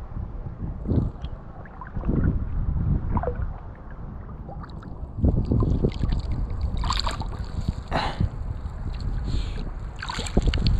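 Shallow seawater sloshing and splashing, with wind buffeting the microphone in low gusts and a few sharper splashes about five to eight seconds in.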